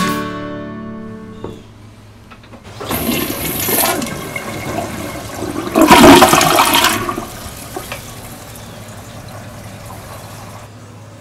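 Last strummed chord of an acoustic guitar ringing out and fading, then a toilet flushing: rushing water that starts about three seconds in and is loudest around six seconds, dying down after about seven.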